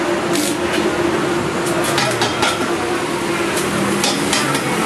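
Stick (arc) welding on an iron frame: the arc gives off a continuous crackling hiss, with many sharper crackles scattered through it.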